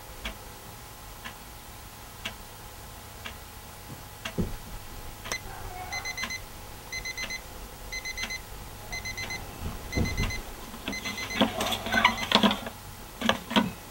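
Alarm clock ticking about once a second, then its electronic alarm going off about six seconds in: quick groups of four high beeps, repeating about once a second. Near the end a hand fumbles at the clock with rustling, knocks and clicks, and the beeping stops.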